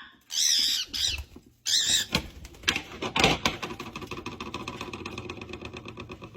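A pet bird squawking twice, shrill and high, followed by an egg crackling rapidly in a hot frying pan.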